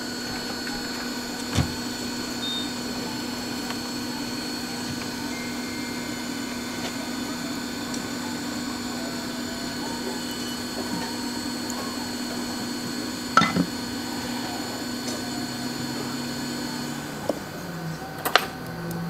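Hot-air rework station blowing on a phone motherboard's CPU chip: a steady blower hum with an air hiss and a few sharp clicks. Near the end the hum drops to a lower pitch.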